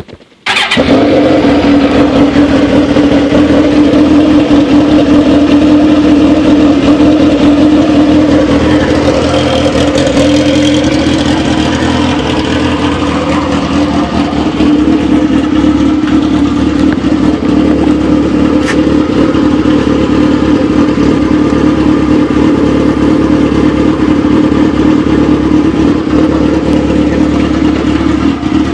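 2003 Suzuki GSX-R1000's inline-four engine firing up about half a second in, then idling steadily.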